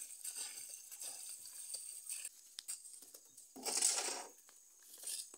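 Water pouring from a plastic jerrycan into a plastic basin of leafy greens, then splashing and rustling as the wet leaves are worked by hand. There is one louder swish of water and leaves about four seconds in.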